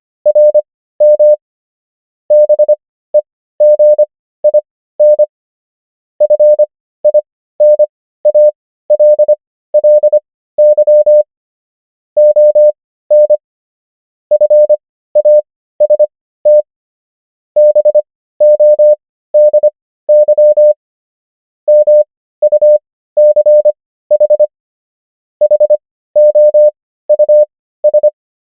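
Morse code practice: a single steady beep keyed on and off into dots and dashes, its characters sent at 25 words per minute with Farnsworth spacing that slows it to 15 words per minute, so each common English word comes as a quick group of beeps followed by a longer pause.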